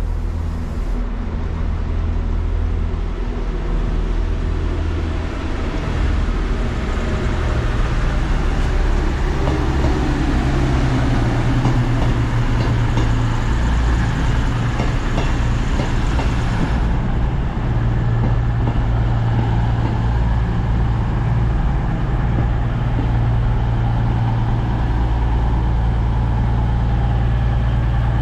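A diesel train's engine running with a steady low drone. A broader hiss rides over it through the middle and stops abruptly about seventeen seconds in.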